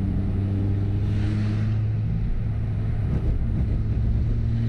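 Ford Fiesta ST's turbocharged engine running under load. There is a short hiss about a second in, and the note breaks up unevenly for a second or so around the middle before it steadies and starts to rise near the end. The engine has a misfire that the owner puts down to the spark plugs.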